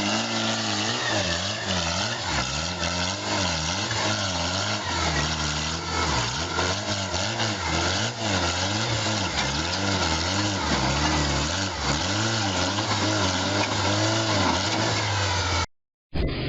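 Vehicle engine running over a steady low hum, its pitch rising and falling over and over, about once a second. It cuts off suddenly near the end.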